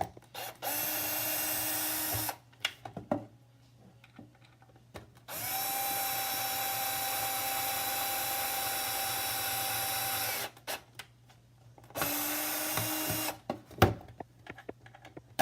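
Cordless drill with a Phillips screwdriver bit driving screws into a cabinet, in three runs, the middle one about five seconds long and higher-pitched, with clicks and knocks between the runs.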